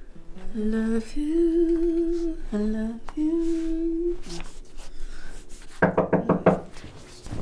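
A young woman humming a slow melody with long held notes. About six seconds in, a quick run of about five or six knuckle knocks on a wooden door.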